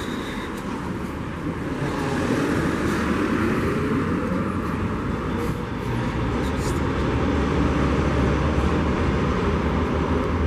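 Street traffic noise from a passing vehicle. A motor whine rises in pitch about two seconds in, and a deep rumble grows stronger in the second half.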